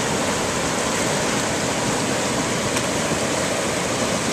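Whitewater river rapids rushing steadily over and around boulders, an even, unbroken rush of water.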